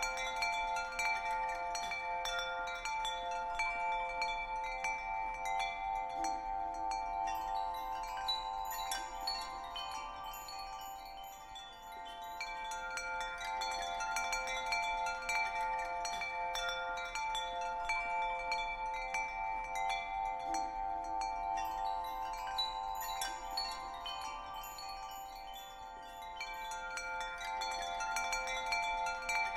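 Soothing background track of ringing, tinkling chimes over a steady sustained tone. It swells and eases gently, dipping briefly about twelve seconds in and again near the end.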